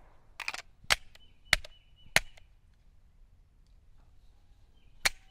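SIG P320 Spectre Comp 9mm pistol firing: three shots about two-thirds of a second apart, then a fourth after a pause of nearly three seconds. The pistol is cycling round after round without jamming.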